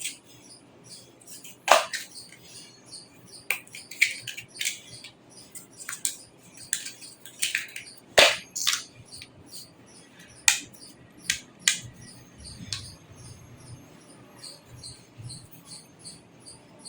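Irregular sharp clicks and knocks of small hard parts being handled, loudest twice, about two seconds in and again about eight seconds in. A cricket chirps steadily in the background, about three chirps a second.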